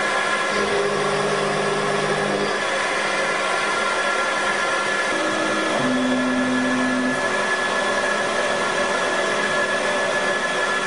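Small CNC milling machine running with a steady whine and hiss. Short motor hums at changing pitch come in about half a second in, lasting about two seconds, and again around five to seven seconds in, as the axes reposition the end mill over the crankshaft blank between cuts.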